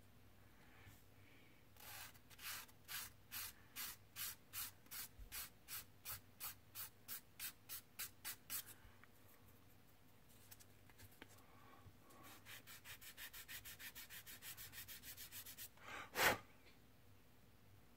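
A sanding stick rubbed back and forth over a small grey plastic model part, smoothing away what is left of the sprue gate: even strokes about three a second, then after a pause a faster run of about five a second. A single sharp knock near the end.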